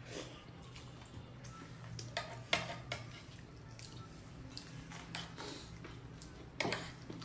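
Eating sounds at a meal of curry and rice: scattered light clinks of cutlery against a plate and soft chewing, with a sharper clink about two and a half seconds in and again near the end.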